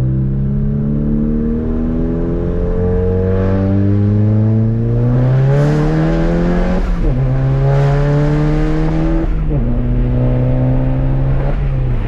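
Volkswagen MK7 GTI's turbocharged 2.0-litre four-cylinder, running a muffler-less exhaust, accelerating through the gears. The engine note climbs steadily, then drops sharply at three quick upshifts in the second half.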